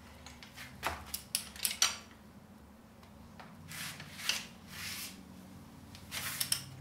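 Socket wrench on an engine mounting bolt: a few sharp metal clicks, then short rasping strokes as the bolt is worked loose.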